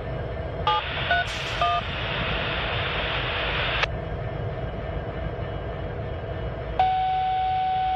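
Freight train's boxcars rolling across a steel trestle, a steady low rumble. Over it a radio gives a quick string of touch-tone beeps about a second in, then a burst of static hiss that cuts off with a click, and a long steady beep near the end.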